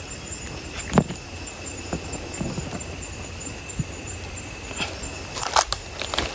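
Fresh fish being handled in a plastic basin: a sharp knock about a second in and a quick cluster of knocks and clicks near the end. A steady high insect trill runs underneath.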